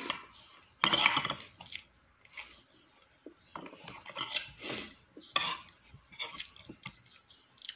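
Metal spoon and fork clinking and scraping against ceramic plates while rice and chicken are scooped up, in a handful of separate short strokes with quiet gaps between them.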